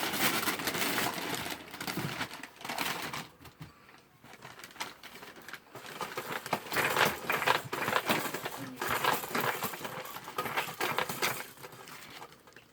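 Wrapping on a surprise egg crinkling and crackling as it is handled and torn open, in irregular bursts, loudest about a second in and again from about six to nine seconds in.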